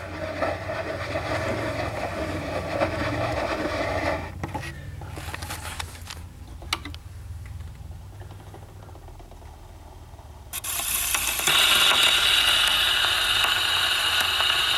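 HMV 101 portable wind-up gramophone being made ready to play: a steady mechanical ratcheting for about four seconds, a single click a few seconds later, then the needle set down on the spinning 78 record, with a sudden steady surface hiss from the horn for the last few seconds.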